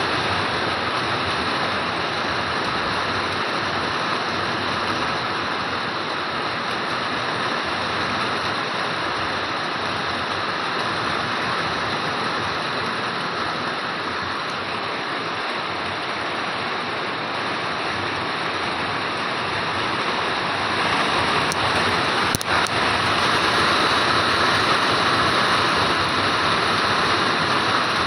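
Heavy rain pouring down in a steady hiss, growing somewhat louder about three quarters of the way through.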